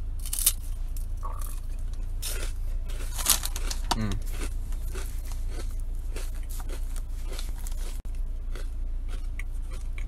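Crisp bites and chewing of a puffed brown rice cake, with sharp crunches about half a second and three seconds in and smaller crackles between. A steady low hum runs underneath.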